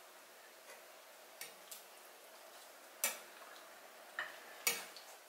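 A metal spoon clinking and scraping against a ceramic rice bowl as a child eats, a few scattered light clinks, the loudest about three seconds in.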